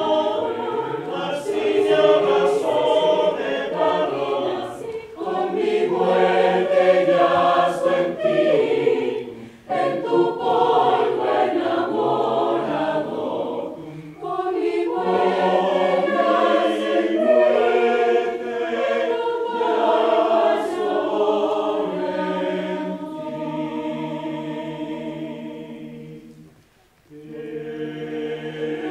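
Mixed choir of men's and women's voices singing in several phrases with short breaks between them; the singing fades out about 26 seconds in, and after a moment's silence the next phrase begins.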